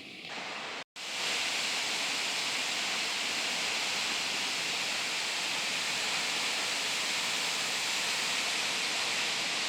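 Steady rushing noise of a large waterfall's falling water, with a brief dropout about a second in.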